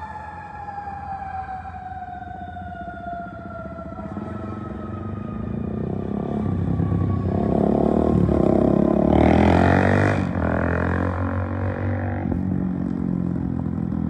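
Federal Q2B mechanical siren on a fire ladder truck winding down, its wail falling slowly in pitch and fading over the first few seconds. Then vehicle engine and traffic noise swells, loudest about nine seconds in, and carries on steadily.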